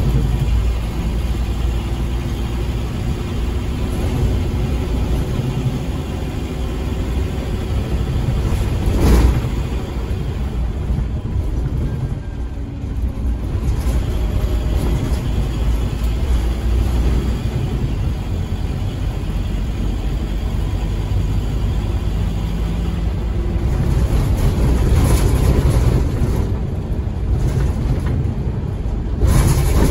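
Scania K230UB Omnilink bus under way, heard from inside the saloon: its rough-running engine and loud ZF Ecomat automatic gearbox drive it along, the level rising and falling. A sharp knock about nine seconds in and another jolt near the end.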